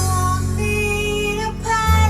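A song playing from a record on a Fairchild broadcast turntable: a sung melody over a steady bass line.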